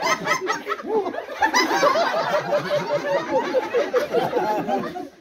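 A crowd of people laughing and chuckling together, many voices overlapping, with some talk mixed in.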